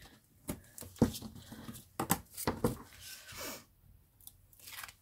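Paper-crafting handling sounds: double-sided adhesive tape pulled from its roll and torn off against a plastic ruler, with paper rustling and a few sharp clicks and taps.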